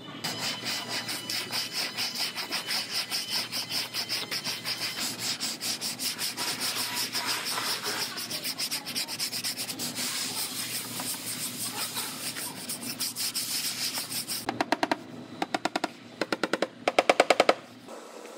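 Hand-sanding cured body filler on a car's quarter panel with a sanding block: steady back-and-forth scratching strokes, about three a second. Near the end come quick, louder bursts of scraping as a plastic spreader mixes fresh body filler on a mixing board.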